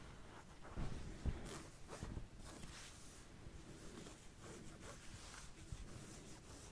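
Quiet back-scratching ASMR sounds: irregular scratching and rubbing strokes, a couple of them louder about a second in.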